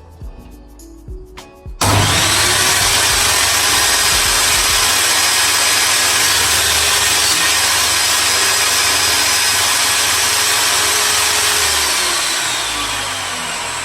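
Einhell 2000 W 250 mm table saw switched on about two seconds in: the motor and blade spin up sharply to a loud, steady whine and run for about ten seconds. Near the end it is switched off and the pitch falls as the blade winds down.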